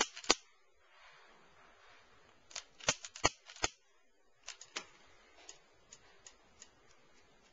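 Long-nose utility lighter's igniter clicking sharply, twice at the start and then in a quick run of four or five clicks about three seconds in as the lighter is lit. Fainter clicks and ticks follow.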